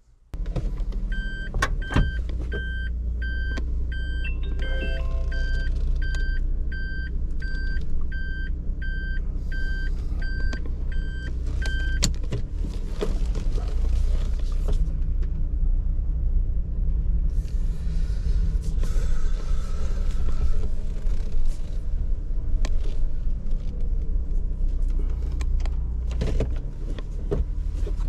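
Suzuki Every Wagon's small three-cylinder engine running steadily just after an engine oil change. A cabin warning chime beeps about twice a second over the first twelve seconds or so.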